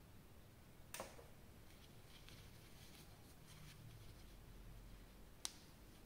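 Near silence broken by small handling noises: a soft click about a second in, faint light rustling, and one sharp click near the end.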